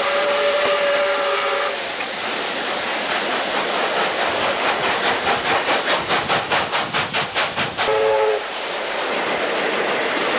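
A steam locomotive whistle holds one steady note for about two seconds over the rushing noise of the moving trains. Then a passing steam locomotive's exhaust beats fast and even, about four a second, and a second whistle with a fuller, chord-like sound blows briefly near the end.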